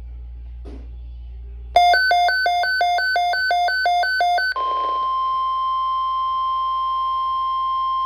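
Midland weather alert radio sounding its alarm: a loud rapid two-tone beep, alternating low and high about three to four times a second for roughly three seconds. Then a steady single-pitched tone, the NOAA Weather Radio warning alert tone that signals an alert message is about to be read.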